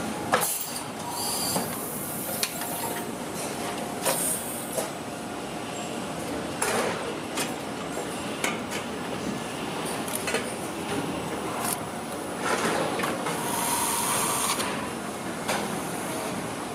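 Car-factory assembly-line machinery noise: a steady mechanical din with scattered clicks and knocks and several short hisses, the longest a couple of seconds long about three-quarters of the way through.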